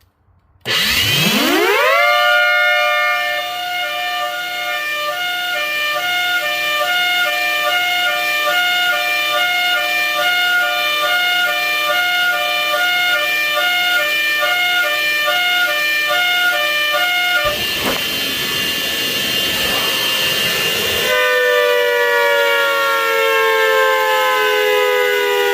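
Imitation of an ACA Hurricane 130 civil defense siren's hi-lo signal. It winds up quickly about a second in, then holds a steady chord that pulses at regular intervals. Near the end a noisy rush comes in for a few seconds, and then the pitch starts winding down.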